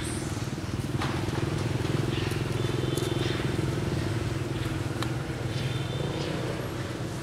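A motor vehicle engine, likely a motorbike, running unseen nearby: a steady low hum that builds to its loudest about two seconds in, then slowly fades as it passes. A few short high chirps sound over it.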